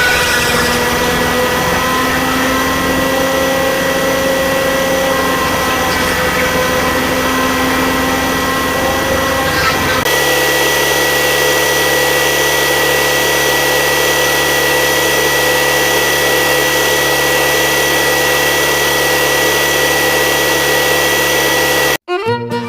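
Small motors of a miniature DIY tractor and thresher model running steadily, with a whining hum. About halfway through, the sound cuts to a different, steadier motor hum, and music begins right at the end.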